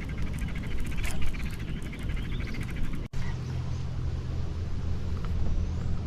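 Frogs and birds calling around the water, a dense fast pulsing chorus. It drops out sharply for a moment about three seconds in, then a steady low hum runs under the calls.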